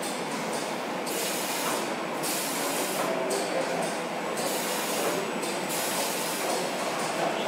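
Steady rushing noise of a car-body paint booth, with a high hiss that cuts in and out every second or so, typical of robot spray guns spraying.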